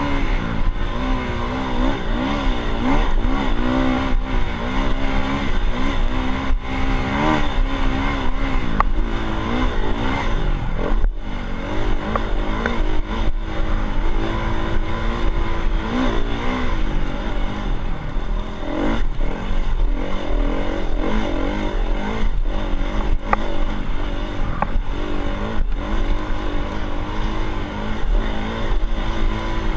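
Dirt bike engine running under way, its pitch rising and falling over and over as the throttle opens and closes, with a couple of brief dips.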